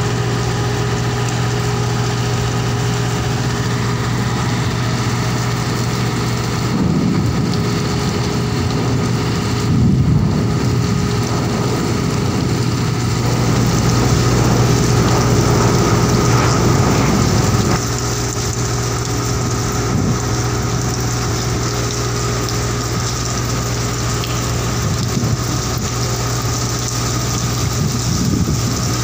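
Steady low drone of a ship's engines and machinery, with rain falling on the deck. The noise grows louder for a stretch in the middle.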